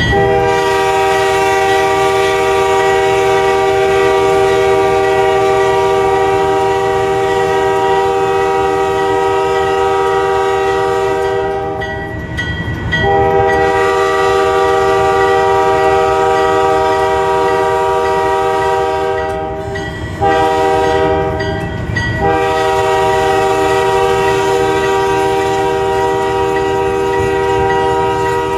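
Diesel locomotive's air horn sounding the grade-crossing signal: two long blasts, a short one and a final long one held on, while a crossing is approached. Under it the locomotive and train rumble steadily on the rails.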